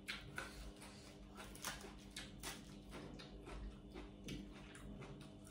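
Fresh lettuce leaves torn apart by hand: faint, irregular crisp crackles.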